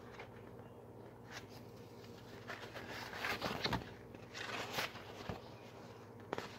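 Quiet, soft rustling and scraping of a large paperback picture book's cover and pages being handled and opened, mostly in the middle few seconds, over a faint steady low hum.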